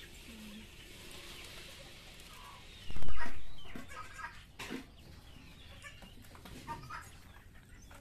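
Chickens clucking in short scattered calls, with a loud sudden burst of noise about three seconds in that fades over about a second.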